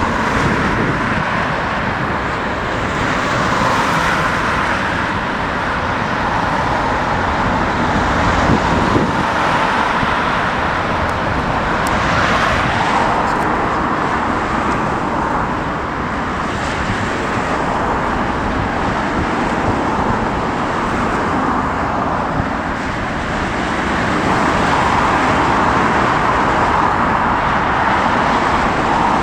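Strong wind buffeting the microphone over a steady rumble of jet airliner engines, which swells and eases slowly with no breaks.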